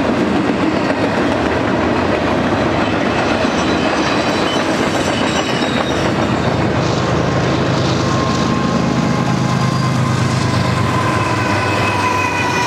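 Double-stack intermodal freight train rolling past, its wheels clicking over the rail joints. About halfway through, the train's rear pair of GE diesel distributed-power locomotives passes, adding a low steady engine hum.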